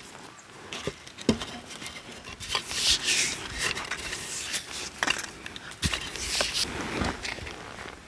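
Cord being wrapped and pulled tight around a bundle of cherry-wood sticks: two longer swishes of the cord drawn through the hands, about three and six and a half seconds in, with scattered knocks of the sticks against each other.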